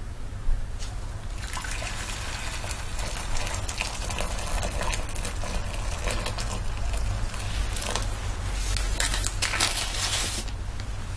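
Water pouring in a stream into a ceramic bowl, starting about a second and a half in and splashing steadily as the bowl fills, over a steady low hum.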